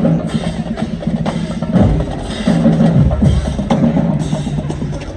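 College marching band drumline playing a cadence: pitched bass drums and snare drums with sharp stick clicks, loud and continuous.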